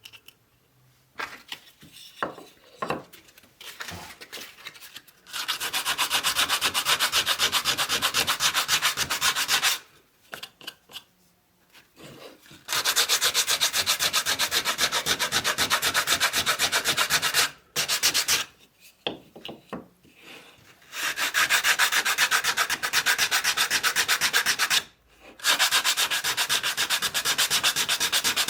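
Sanding, with sandpaper rubbing in rapid, even strokes in four long bouts of several seconds each. Short pauses with small handling clicks fall between the bouts.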